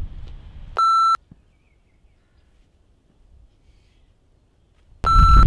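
Two short electronic beeps at the same steady high pitch, the first about a second in and the second near the end, with near silence between them. Faint outdoor background noise fades out before the first beep, and loud wind noise starts under the second.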